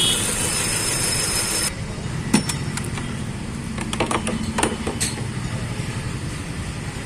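Hyundai i20 petrol engine running rough, misfiring on one cylinder from a shorted ignition coil, under a steady low rumble. A hiss cuts off suddenly about a second and a half in, and several sharp clicks and knocks follow.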